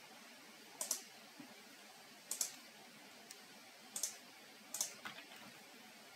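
A few isolated computer keyboard and mouse clicks, about a second or so apart, over faint room hiss.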